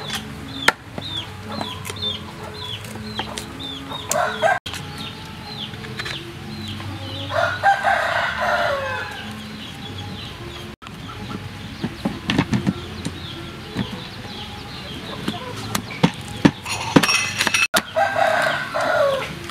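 A rooster crowing once at length about eight seconds in, with shorter calls midway through the first half and near the end. A small bird chirps quickly over the first few seconds, and in the second half a cleaver knocks against a wooden chopping board as soursop flesh is cut.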